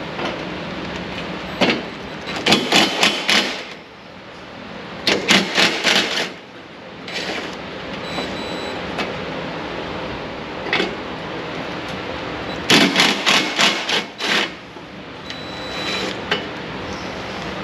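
Quick runs of sharp clacks and knocks, several strikes at a time, from hand work on the car's front end as the headlight is removed. A steady hiss runs under them.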